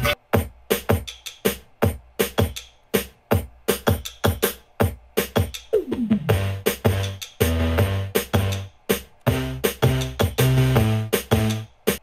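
Electronic music with a drum-machine beat playing from a Bose SoundLink Flex Bluetooth speaker during a sound test. About halfway through a falling pitch sweep is heard, and a strong bass line comes in after it.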